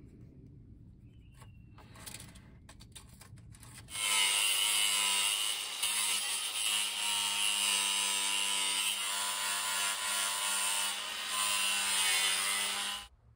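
A few light handling clicks, then about four seconds in a small electric circular saw starts and cuts through a white PVC drainage pipe for about nine seconds: a steady motor whine with a high-pitched hissing cut, stopping abruptly near the end.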